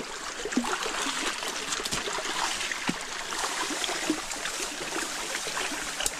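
Shallow river water trickling and burbling over stones, with scattered small splashes and knocks from wading through it.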